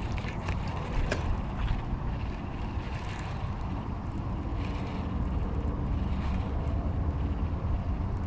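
Wind buffeting the microphone as a steady low rumble, with faint clicks and the soft whir of a baitcasting reel being cranked in.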